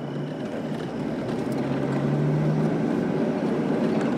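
Jeep Wrangler TJ Rubicon's 4.0-litre straight-six engine and road noise heard from inside the cabin while driving slowly: a steady low hum over rumble. It grows a little louder after about a second.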